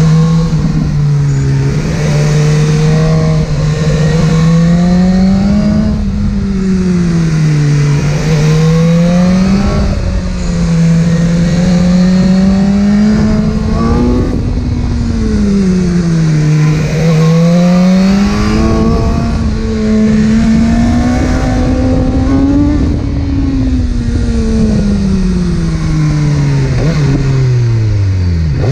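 Inline-four sport motorcycle engine under way, its pitch rising and falling several times as the throttle is opened and eased. Near the end it drops steeply as the bike slows.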